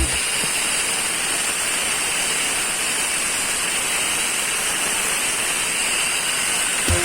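Angle grinder fitted with a chainsaw attachment running steadily: an even, high-pitched whir and hiss that holds at one level.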